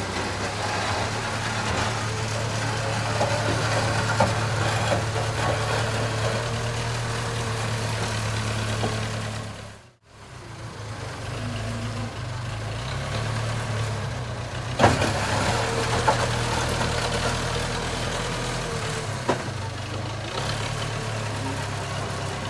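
JCB 3CX backhoe loader's diesel engine running steadily. The sound cuts out briefly about halfway through, then resumes, with a couple of sharp knocks later on.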